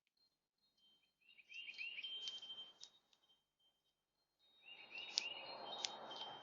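A songbird calling in two phrases of quick, curved chirps with a thin held note and sharp clicks, the second phrase starting about halfway through, over a faint low rushing noise.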